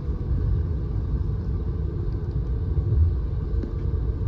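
Low, steady rumble of road and engine noise inside a moving car's cabin.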